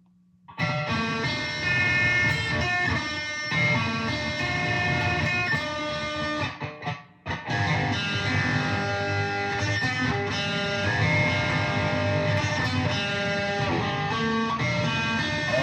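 Fuzz-distorted electric guitar playing an instrumental passage. It starts about half a second in and breaks off briefly about seven seconds in.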